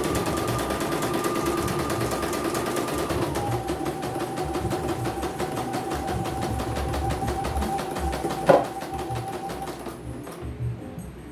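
CNY portable computerized embroidery machine stitching: a fast, even run of needle strokes under a steady motor whine that drops in pitch about three seconds in. There is a sharp click near the end, and the stitching stops shortly after.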